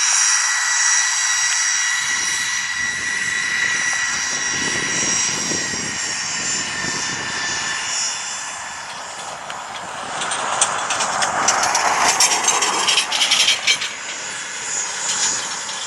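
Jet aircraft engines running, a steady high whine over a rushing rumble; about two-thirds of the way through the sound turns rougher and crackly with sharp pulses.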